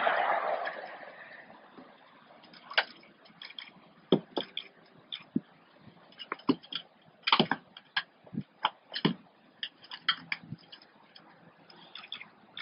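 Scattered light clicks and taps, singly and in small clusters, as a service dog works at a pickup truck's open door and takes a bag out of the cab; the sharpest cluster comes a little past the middle.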